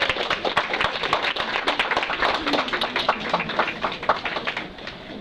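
A roomful of people applauding, many hands clapping at once, with a few voices mixed in; the clapping thins out near the end.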